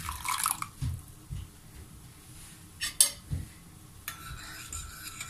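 A spoon stirring and clinking against a bowl as instant miso paste is mixed into hot water: scattered light knocks, with a sharp double clink about three seconds in.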